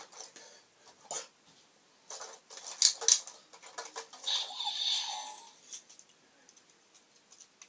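Hard plastic toy pieces being handled: a string of sharp clicks and knocks, densest between about two and three seconds in, then a stretch of rustling about four seconds in that lasts over a second.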